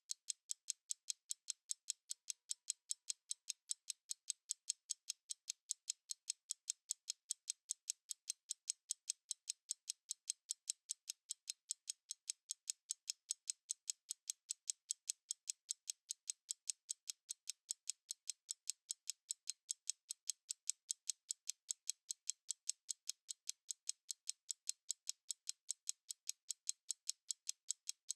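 Stopwatch ticking: a steady run of rapid, evenly spaced, high-pitched ticks.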